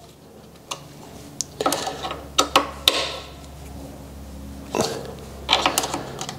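Scattered light clicks and taps of a 4 mm Allen wrench engaging and turning the button-head bolts of a rear brake master cylinder guard, final tightening, over a low steady hum.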